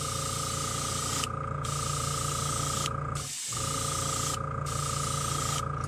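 Airbrush spraying paint: a steady hiss over a low hum and a high whistling tone. It cuts out briefly about halfway through, then starts again.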